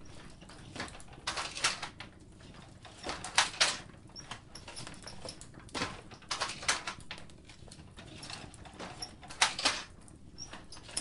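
Wooden low-warp hand loom being worked: a series of short clacking, rubbing strokes every second or two.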